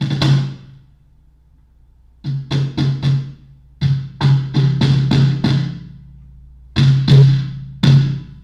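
Homemade tall ammo-can cajon, fitted with a piezo pickup and half a snare-drum snare taped inside, slapped by hand and played through a bass amp. The hits come in short runs of quick strokes with pauses of about a second between, each carrying a deep boom.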